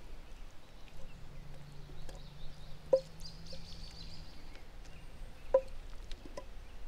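Three light knocks of a wooden spatula against a skillet as sautéed vegetables are scraped out of it, over quiet outdoor background with a faint low hum in the first half.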